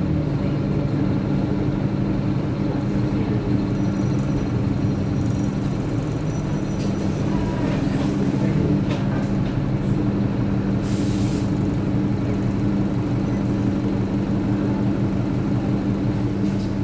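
Bus engine heard from inside the passenger saloon, running with a steady low drone. A brief hiss about eleven seconds in.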